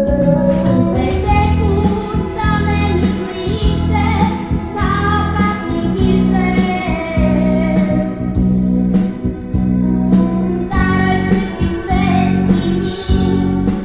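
Background music: a song with a singing voice carrying the melody over steady instrumental accompaniment.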